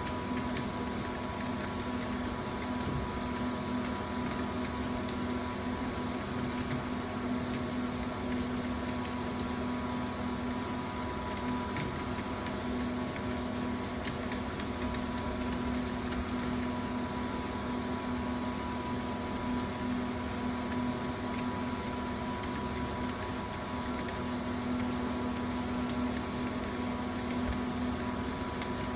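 Steady mechanical hum with a constant low drone and a fainter higher whine, unchanging throughout, like a running fan or air conditioner.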